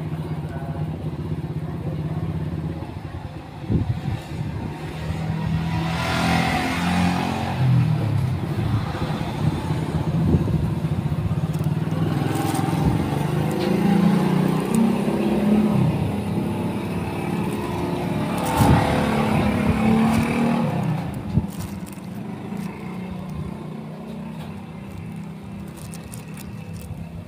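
Motor vehicle engine running, its pitch shifting up and down, swelling louder twice: about a quarter and again about two-thirds of the way through.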